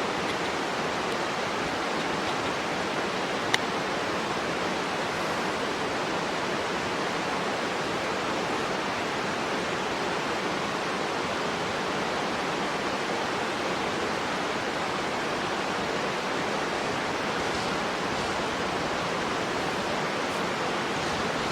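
Steady rushing of flowing water, an even noise that does not change, with a single sharp click about three and a half seconds in.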